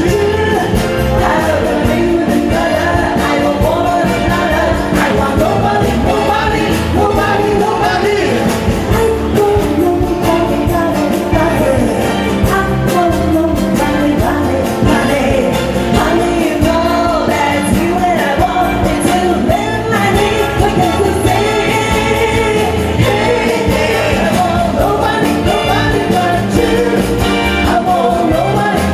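A live amplified song by a duo: singing over acoustic guitar and Korg keyboard accompaniment, going steadily throughout.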